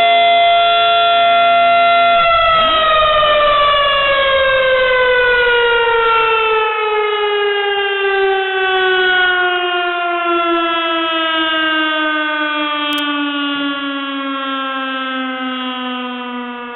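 Federal Signal STH-10 outdoor warning siren holding a steady tone, then winding down from about two seconds in, its pitch falling slowly and its level fading as the rotor coasts to a stop.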